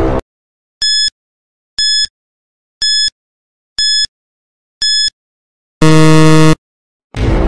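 Countdown timer sound effect: five short, high electronic beeps, one a second, then a loud buzzer about six seconds in as the count reaches zero, signalling time up. A whoosh sounds at the start and again near the end.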